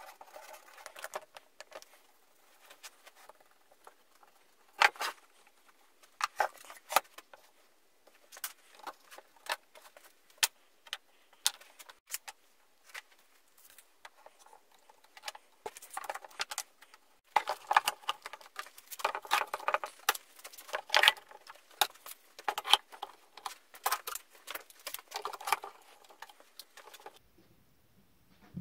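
Scattered clicks, knocks and rattles of hand work on a glue-up: plywood parts being handled and set down, and a one-handed bar clamp being squeezed tight. The clicks come thicker toward the second half.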